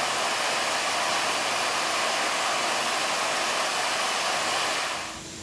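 Steady rush of falling water. It drops away sharply about five seconds in, leaving a quieter hiss with a faint steady hum.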